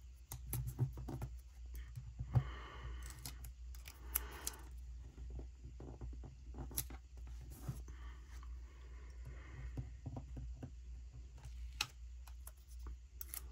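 Small desk handling sounds of sticker work: metal tweezers clicking and tapping against paper while stickers are peeled off a sticker sheet and pressed onto a planner page, with a couple of brief paper rustles.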